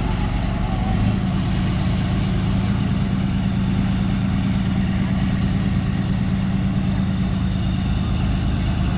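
Leopard 2A6 tank's 1,500 hp MTU V12 twin-turbo diesel engine running steadily at a constant speed, a deep, even drone with no revving.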